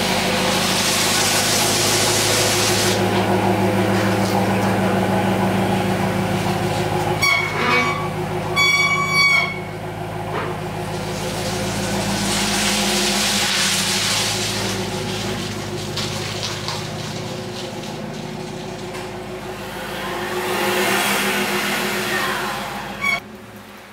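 Ford F-350 Super Duty pickup's engine idling steadily, with a few short high tones about seven to nine seconds in. The engine sound stops abruptly after a click near the end.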